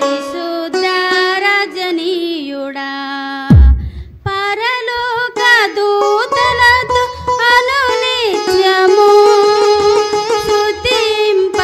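Telugu Christian worship song: a gliding melody, sung or played, over instrumental accompaniment, with a loud low thump about three and a half seconds in and a brief break just after.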